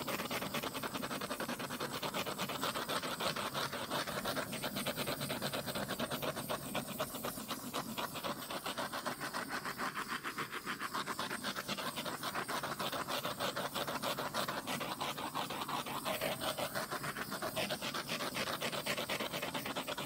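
Handheld gas torch burning steadily, its flame hissing with a rapid fine flutter, played over wet acrylic pour paint.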